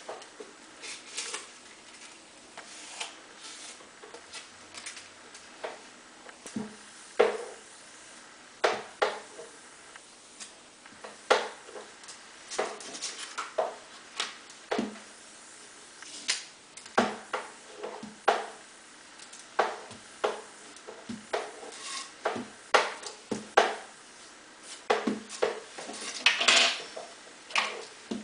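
Irregular clicks, taps and brief rustles of foam parts being handled, pressed and set down on a plastic cutting board, with a longer scraping rustle near the end.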